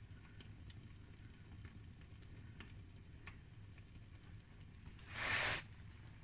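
Pot of thick marmalade boiling, with faint scattered bubble pops over a low steady hum. About five seconds in comes a brief, louder hiss lasting about half a second.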